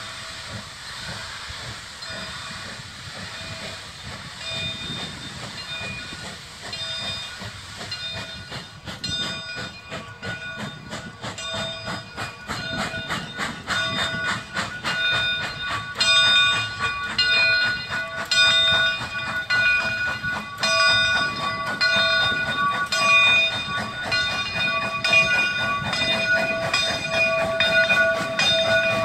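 Steam locomotive approaching slowly, steam hissing from its open cylinder cocks at first. From about a third of the way in, a fast run of sharp beats with repeating ringing tones comes in, growing louder as the engine draws near.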